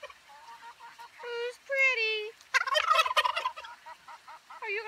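Domestic tom turkey gobbling: two drawn-out calls, then a rapid rattling gobble in the middle, with another call starting near the end.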